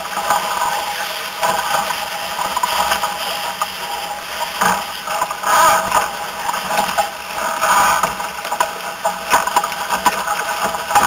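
Wind rushing over the deck-mounted camera's microphone and water noise from a Formula 16 catamaran sailing at speed, an uneven rush that swells and fades, with a few brief knocks.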